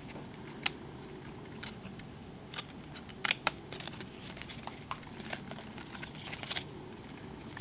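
Glossy 1991 Stadium Club baseball cards being pulled apart and flipped through by hand: scattered light clicks and snaps of the card stock, with a sharper snap just under a second in and two louder ones a little past three seconds.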